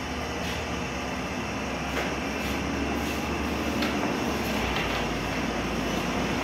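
Steady rushing hum of a bakery bread oven's gas burner, with a few faint knocks.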